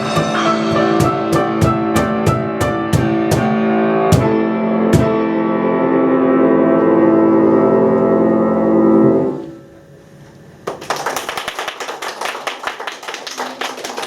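Piano music closing out a song: chords punctuated by sharp percussion hits, then a final held chord that stops about nine seconds in. After a short pause, hand clapping starts and continues.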